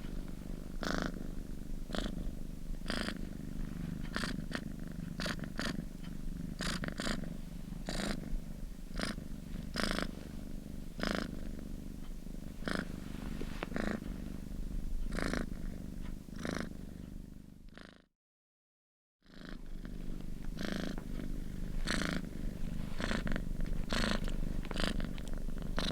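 Domestic cat purring close to the microphone: a steady low rumble that swells with each breath, about once a second. It cuts out completely for about a second roughly two-thirds of the way through, then resumes.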